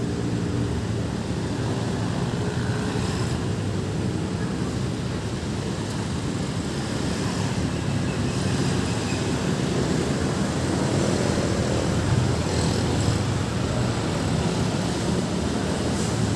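Road traffic moving slowly, dominated by the steady low drone of heavy vehicle engines.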